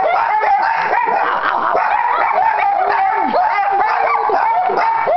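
Several puppies yipping, barking and whining all at once in an unbroken tangle of overlapping cries, an excited greeting for their owner coming home.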